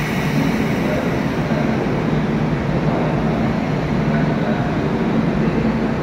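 Steady rumble and hum echoing in an underground railway station, with no single event standing out.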